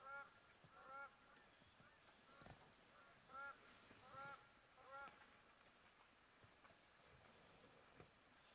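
Large birds calling in flight with faint, goose-like honks: about six short, arched calls in the first five seconds, then none. A steady high insect trill runs underneath.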